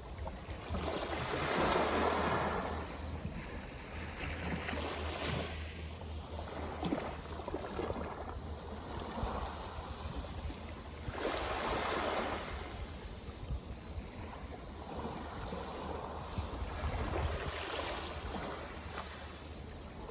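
Small sea waves breaking and washing up the beach in slow swells, with two bigger surges, one about a second in and another about eleven seconds in.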